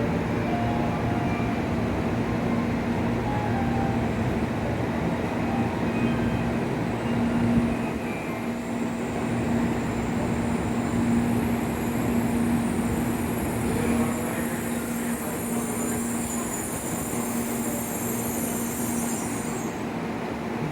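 N700-series Shinkansen train pulling out of the platform: a steady rumble of wheels and running gear under a constant low hum. A high-pitched whine sets in about eight seconds in and stops just before the end.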